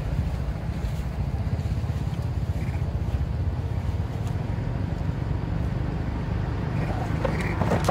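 Wind buffeting the microphone: a steady low rumble, with a few faint short high chirps and a couple of light clicks near the end.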